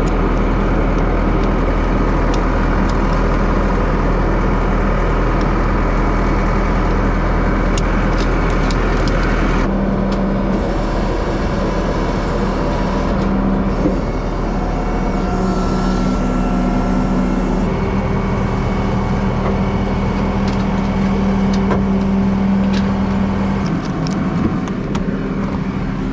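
Flatbed tow truck's engine running steadily, its hum changing in tone about ten seconds in and again near the end. Light clicks of a ratchet strap being tightened sound over the first several seconds.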